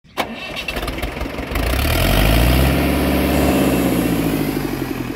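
An engine starts with a sharp click and runs with an even, rhythmic throb. It grows louder about a second and a half in and eases off near the end.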